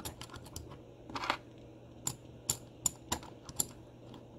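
Small lead weights being pressed into the metal chassis and interior tub of a Hot Wheels 1:64 F-150 toy truck: a string of light, irregular clicks and taps of metal on metal and plastic.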